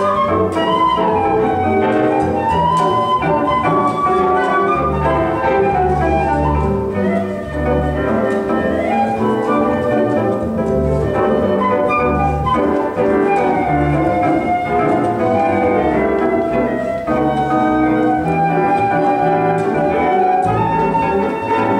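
Live small-group jazz: a flute plays a flowing melodic line over piano chords and a plucked upright bass, with a guitar accompanying.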